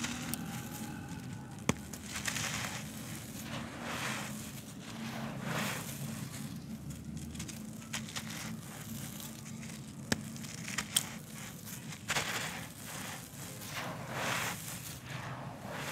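Hands squeezing and crumbling dry, porous handmade lumps of gritty floor material, a run of crunches with grit and dust pouring onto the pile. A few sharp cracks stand out, about two seconds in and twice around the ten-second mark.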